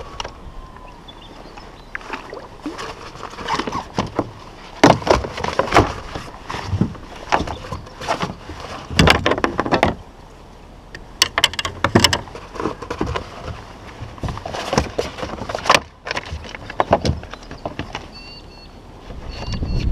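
Irregular knocks, bumps and clatter from handling a fish and gear on a plastic kayak, some strokes sharp and loud, with short quieter gaps between them.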